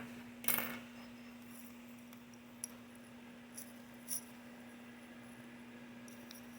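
A short scrape about half a second in, then a few faint clicks from small tools and parts being handled during soldering work on a scooter controller board, over a steady low electrical hum.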